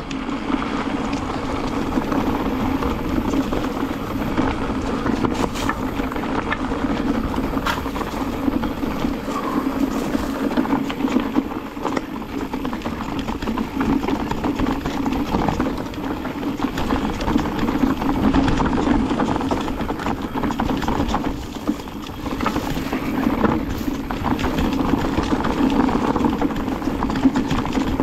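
Mountain bike rolling down a rocky dirt trail: a steady rumble of tyres over gravel and stones, with constant small knocks and rattles from the bike.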